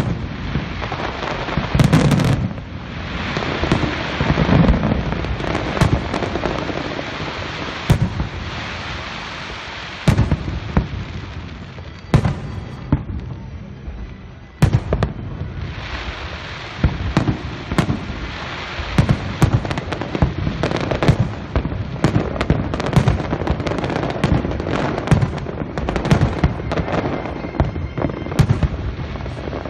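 Aerial fireworks bursting: a run of sharp bangs and pops over a steady rumble, coming in quick succession in the second half.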